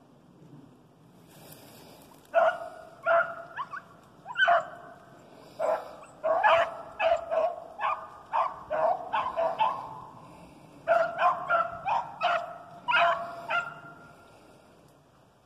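Rabbit-hunting hounds barking on the chase: a run of short pitched barks, one to three a second, with a brief lull in the middle.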